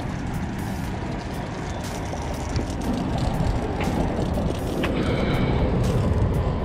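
Road traffic rumbling across the bridge, growing louder toward the end, with a few faint clicks.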